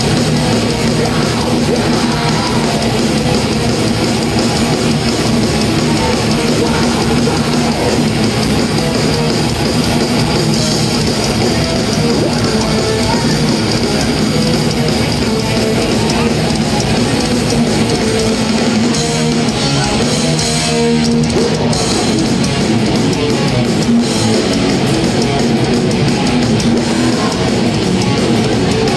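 Thrash metal band playing live at full volume: distorted electric guitars, bass and drums, heard from within the audience.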